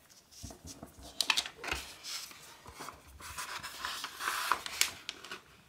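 A large sheet of origami paper being folded in half as a precrease: it rustles and crackles as it is lifted and brought over, then gives a longer scraping rustle as the fold is pressed flat. Two sharp crackles stand out, a little over a second in and near the end.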